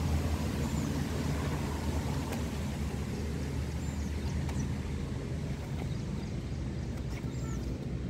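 Outdoor background noise: a steady low rumble, with a few faint short high chirps about a second in, near the middle and near the end.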